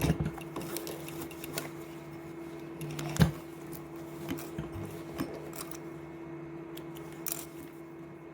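Scattered light clicks and rustles of a zipper and jacket fabric being handled and positioned, the sharpest click about three seconds in, over a steady low hum.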